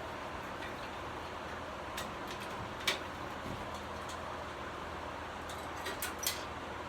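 A few scattered light clicks and clinks of metal parts and hand tools being handled while the air cleaner is taken off the engine, over a steady low hiss. The sharpest click comes about three seconds in, with a quick pair near the end.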